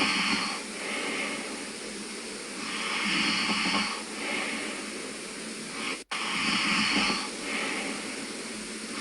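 A sleeping man snoring with noisy, hissing breaths: a longer breath followed by a shorter one, the pair repeating about every three and a half seconds. The sound cuts out for an instant about six seconds in.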